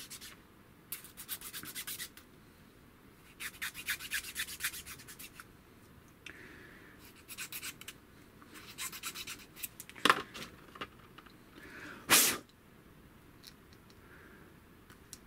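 Needle file rasping in short runs of quick strokes on the inside flats of a small glued 3 mm MDF part, in three bursts. It is easing a tight fit so the M5 bolt will push through. A short louder rush of noise comes near the end.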